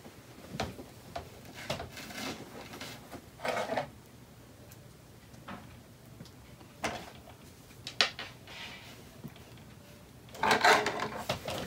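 Small plastic doll figures and pieces being handled on a plastic Vampirina Scare B&B dollhouse: scattered light clicks and clacks as they are knocked and set down, with a louder rattle about ten seconds in.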